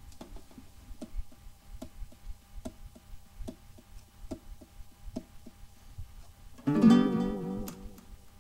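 Aria vintage baritone ukulele played solo: quiet, even ticks about three a second, then a loud strummed chord near the end that rings and fades.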